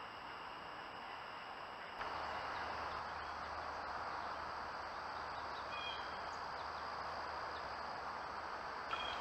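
Outdoor ambience through a trail camera. At first, steady high trilling of night insects. After a cut about two seconds in, a steady hiss with a low hum, the din of surrounding development, with a faint insect drone and a brief two-note bird chirp a little before the six-second mark.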